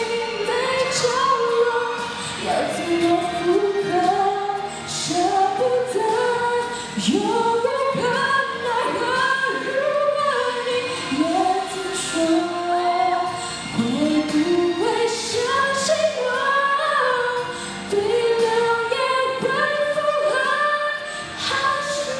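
A young woman singing a Mandarin song solo through a microphone, in sung phrases that rise and fall with short breaks between them.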